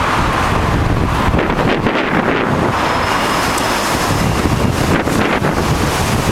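Strong wind buffeting the camera's microphone: loud, steady gusting noise with no breaks.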